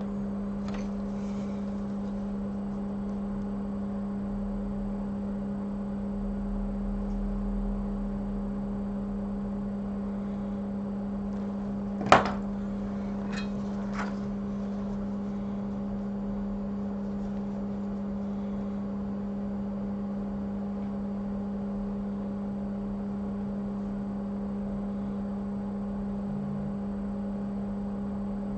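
Steady low electrical hum from repair-bench equipment, with one sharp click about twelve seconds in and two fainter ticks shortly after.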